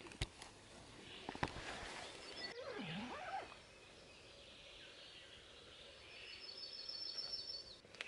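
Faint open-air ambience with distant birds singing, including a high, thin trill near the end.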